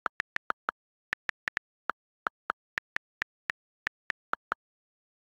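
iPad on-screen keyboard key clicks: about twenty quick taps at an uneven typing pace as a line of text is typed, stopping about four and a half seconds in.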